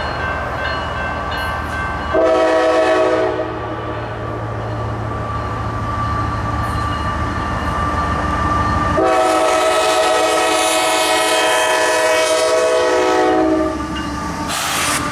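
Nathan K5LA five-chime air horn on a CSX ET44AH diesel locomotive sounding one short blast about two seconds in, then a long blast of about four and a half seconds, the short-then-long ending of a grade-crossing warning. Under it is the low rumble of the approaching locomotive, and near the end a brief rush of noise as the locomotive reaches the camera.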